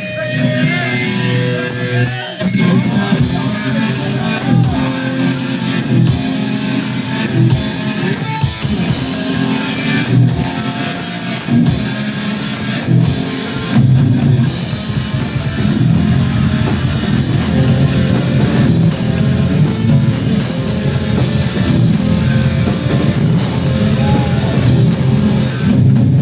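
Black metal band playing live: distorted electric guitars over a drum kit, loud and continuous.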